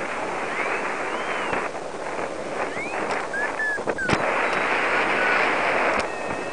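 Wind rushing over a head-mounted camera's microphone during a paraglider flight, a steady rushing noise, with a couple of sharp knocks about four and six seconds in.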